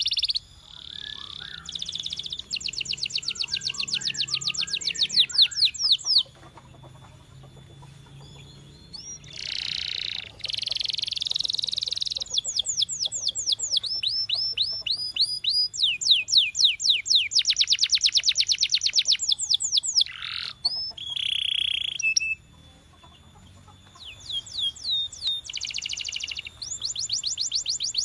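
Canary singing: phrases of fast trills made of rapidly repeated sweeping notes, each phrase lasting a few seconds, broken by short pauses.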